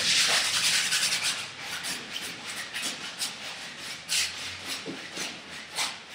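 A painting tool rubbing and scrubbing across a large canvas: one long scratchy stroke at the start, then a run of shorter rasping strokes.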